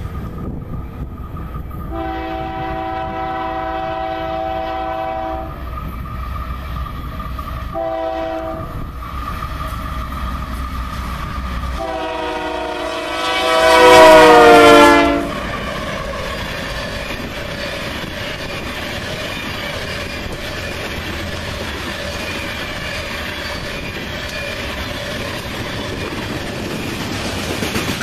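Union Pacific freight locomotive air horn sounding three blasts: a long one, a short one, then the loudest, whose pitch drops as the lead engine passes. After it, the steady rumble and clatter of coal hopper cars rolling by.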